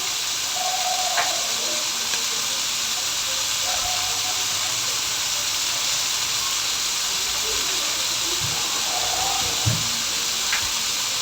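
Onion, garlic, ginger, tomato and chili sautéing in hot oil in a pan: a steady sizzle, with a couple of light clicks.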